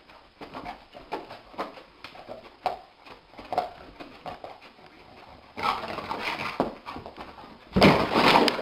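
A dog wriggling and rolling on a carpet, making a run of short grunts about twice a second. Then come longer, louder scuffling noises over the last three seconds, loudest near the end as it rolls against the wall.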